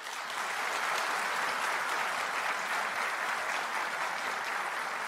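A large seated audience applauding steadily, a dense even clatter of many hands clapping in a big hall.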